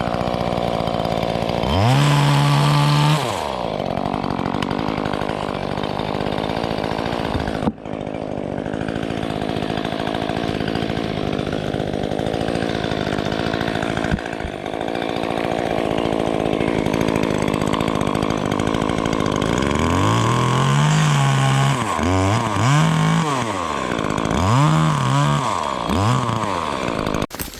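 DeWalt 60V top-handle battery chainsaw running and cutting wood. Its motor spins up and winds down about two seconds in, then several more times in quick succession near the end.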